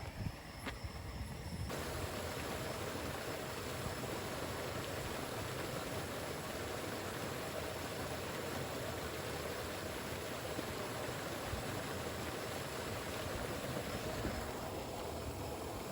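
Steady hiss of rushing water that comes in abruptly about two seconds in; near the end its higher part fades back.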